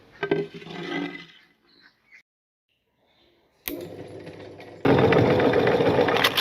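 Electric meat grinder switched on with a click about two-thirds of the way in, running, then turning much louder and rougher about a second later as it takes in the crunchy cookies. A brief clatter of handling comes before it, near the start.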